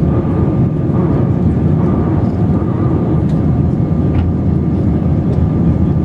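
Airbus A320-family jet climbing after takeoff, heard from inside the cabin: a loud, steady rumble and rush of engine and air noise, with a faint steady whine above it.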